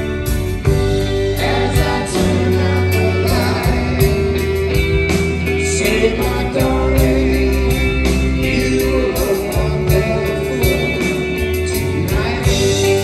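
Live rock band playing: electric guitar, drum kit and hand drums under sung lead vocals.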